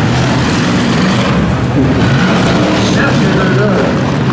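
Several V8 demolition-derby cars running and revving together: a steady low engine drone under a constant haze of engine and exhaust noise.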